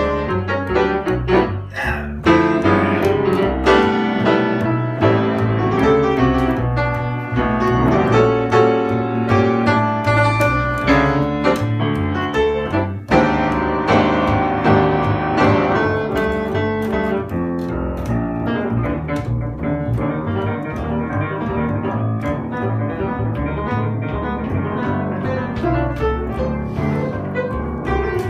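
Piano and double bass playing a jazz standard together, the piano carrying chords and melody over a walking bass line.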